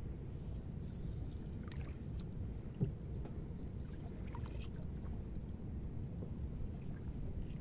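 Gill net being hauled by hand out of the river over a wooden boat's side: faint splashes and drips of water off the net over a steady low rumble, with a soft knock about three seconds in.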